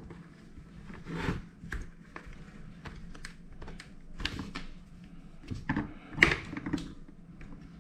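Irregular plastic clicks, knocks and short scrapes of a GoPro mount being handled and fitted on a motorcycle helmet, the loudest knock about six seconds in.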